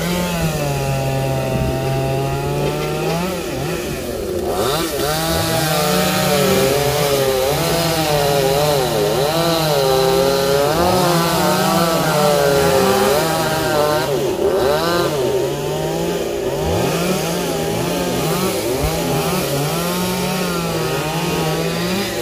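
Chainsaw cutting through the trunk of a sao tree, its engine pitch rising and falling again and again as the chain bites into the wood, easing off briefly twice.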